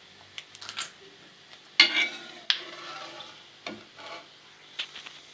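A spoon scraping and knocking in a pan of hot ghee as puffed, crispy fried gond (edible gum) is scooped out, with light sizzling between the strokes. The scrapes and knocks come irregularly, the loudest about two seconds in.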